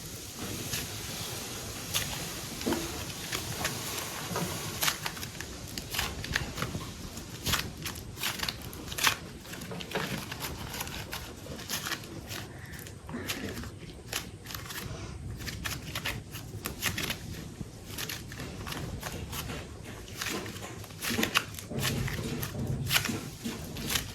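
Close-miked hands working soft, super light modelling clay: irregular small clicks and crackles over a steady low hiss.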